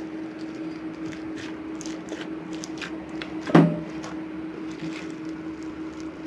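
Crunchy slime packed with small styrofoam beads being squeezed and poked by hand: scattered small crackles and clicks as the beads rub and pop, with one louder squish a little past halfway.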